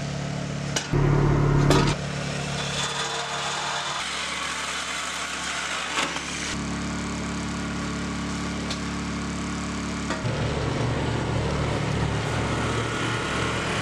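Corded DeWalt reciprocating saw cutting through the steel beams of a mobile home frame, with a Honda portable generator running. The sound is steady but changes abruptly several times, loudest from about one to two seconds in.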